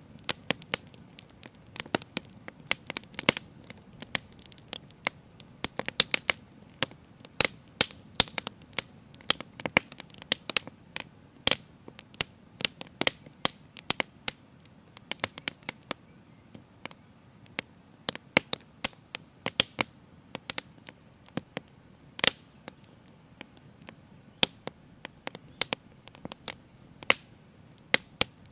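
Live fire crackling, with frequent irregular sharp pops over a faint low rush; the pops come thicker in the first half.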